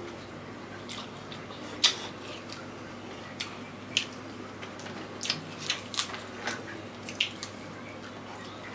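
Cooked mud crab shells being cracked and picked apart by hand, with wet sucking and chewing of the crab meat. About a dozen sharp cracks and clicks come scattered through, the loudest about two seconds in.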